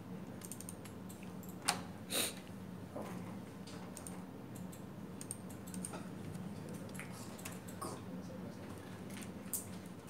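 Steady low room hum with a few scattered sharp clicks and knocks, the loudest two close together about two seconds in and one near the end.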